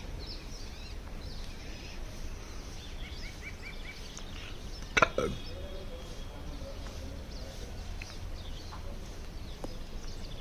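Morning city ambience from a rooftop: a steady low hum with scattered bird chirps. About halfway through comes one short, louder sound that falls in pitch.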